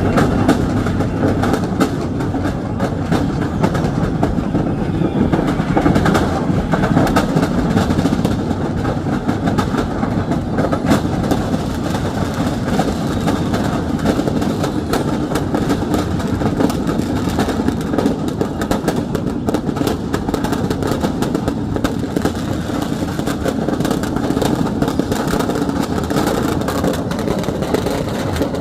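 Firecrackers set off by a fire in a fireworks shop, going off in a dense, continuous barrage of rapid cracks and bangs with no let-up.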